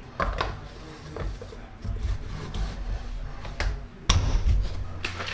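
Plastic shaker bottle having its lid fitted, with a few sharp clicks, then thuds and knocks as the bottle is handled on a counter. The loudest knock comes about four seconds in.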